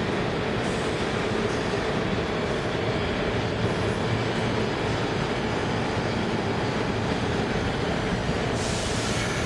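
New York City subway train running along an underground station platform: a steady rumble of steel wheels on rail, slowing as it pulls in, with a short hiss near the end.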